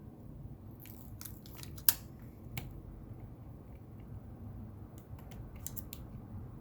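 Small sharp clicks and taps from a phone and small repair tools being handled on the bench. They come in two clusters, the loudest about two seconds in, over a low steady hum.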